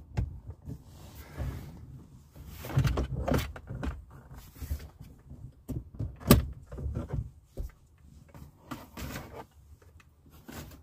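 Plastic interior trim and shifter parts being handled and shifted about in a car's cabin: irregular knocks, scrapes and rustles, with one sharp clack about six seconds in.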